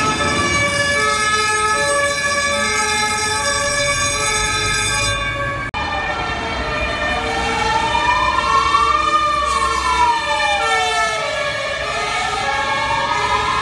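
Madrid fire engine sirens: a two-tone siren switching between two pitches, then, after an abrupt cut about six seconds in, a wailing siren slowly rising and falling over the two-tone one.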